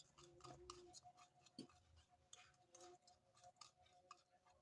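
Near silence: faint room tone with a few soft scattered ticks and clicks.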